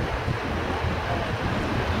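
Steady street traffic noise, a low engine rumble under a broad hiss, with wind buffeting the microphone.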